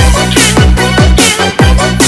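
Loud electronic dance music with a steady kick-drum beat, about two beats a second, over held bass notes.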